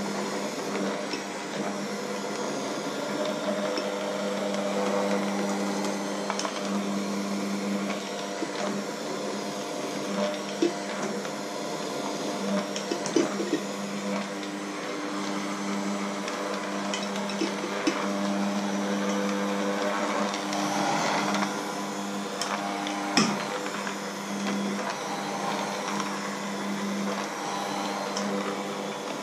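A Bosch electric hand mixer runs steadily, its beaters churning a thick batter in a stainless steel bowl. The motor hum carries throughout, with a few sharp knocks along the way.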